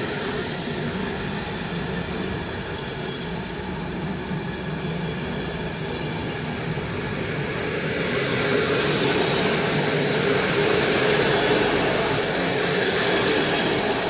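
PKP Intercity passenger coaches rolling past as the train pulls away from a station stop: a steady rumble of wheels on rail that swells about eight seconds in and eases slightly near the end.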